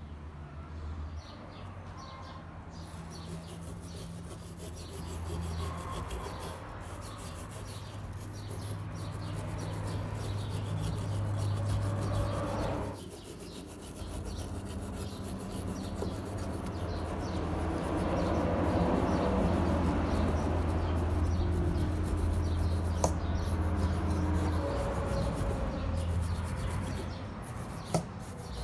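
A small steel wire brush scrubbing rust off an old steel hand punch in steady, scratchy back-and-forth strokes, with a short pause about halfway through and a couple of light clicks. A low steady hum runs underneath.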